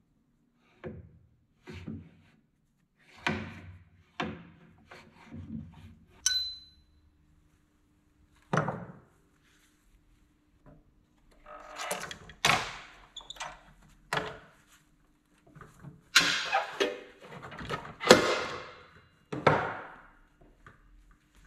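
A flat steel bar being set and clamped in a metal-cutting saw's vise: a string of knocks and clunks of metal on metal, a short metallic ring about six seconds in, then a stretch of louder clattering and scraping as the bar and vise are worked. A faint steady hum runs underneath from a few seconds in.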